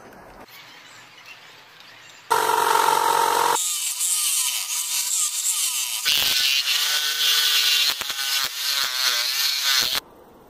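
Upside-down mounted jigsaw starting up about two seconds in and sawing through thin plywood, its motor pitch wavering as the blade follows a curved cut. It cuts off abruptly near the end.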